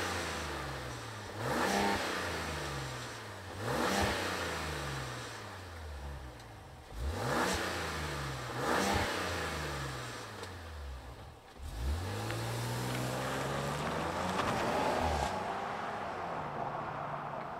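2025 Ram 1500 Tungsten's high-output 3.0-litre twin-turbo Hurricane inline-six, heard from the exhaust, revved in quick blips about five times, dropping back to idle between them. About twelve seconds in the truck pulls away: the engine note rises and holds, then fades as it drives off.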